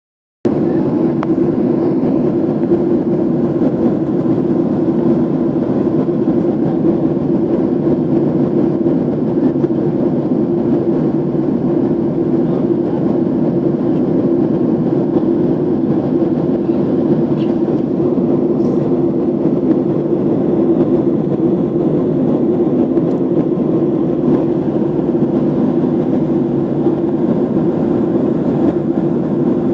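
Steady, unchanging drone of an airliner's engines and airflow heard inside the passenger cabin.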